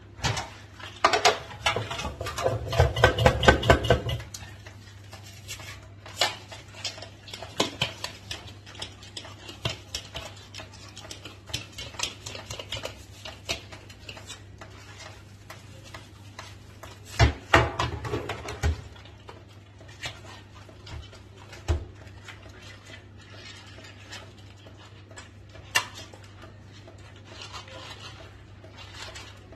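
A plastic sink basket and the bottles and brushes in it being scrubbed and moved about in a kitchen sink, knocking and rattling against it. The clatter comes in two busy stretches, near the start and about halfway through, with scattered single knocks in between, over a low steady hum.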